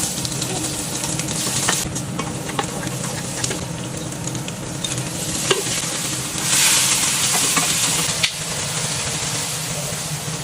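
Food frying and sizzling in a pan as it is stir-fried, with a spatula now and then knocking and scraping against the pan. About six and a half seconds in the sizzle grows louder for a second or so.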